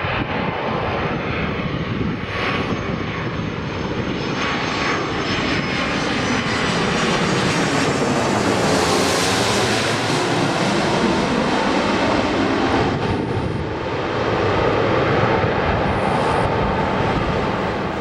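Airbus A330-300 twin-jet airliner on landing approach, its engines running with a rushing roar and a thin whine that swell to their loudest about halfway through as it passes close, then ease away.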